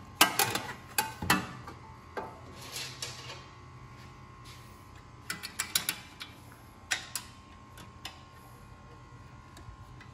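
Hands working on a small snowblower engine, fitting wires and a sheet-metal bracket: scattered light clicks and knocks in a few short clusters, the busiest in the first second and a half.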